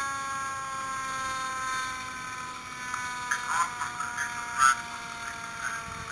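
A siren's steady tone slowly winding down, falling gradually in pitch.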